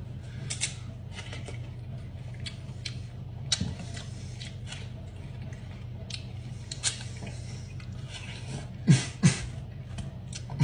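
A person eating watermelon: scattered soft chewing clicks over a steady low hum, with two louder knocks about nine seconds in.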